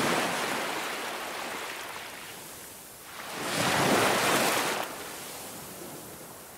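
Ocean surf breaking on a beach, a steady hiss that swells twice. The second surge, about three and a half seconds in, is the louder.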